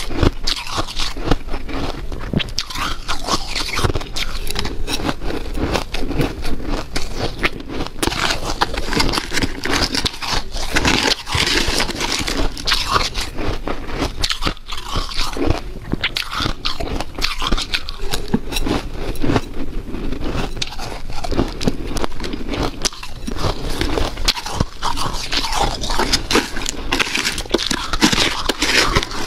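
A person biting and chewing powdery, snow-like freezer ice close to the microphone: continuous crunching made of many sharp crackles.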